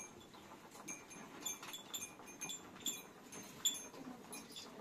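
Small bells tinkling faintly and irregularly, a light ting about twice a second.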